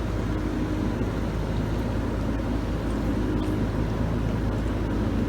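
Samsung DW80R5061UG dishwasher running mid-cycle: a steady, even hum from its pump, with a low rumble underneath.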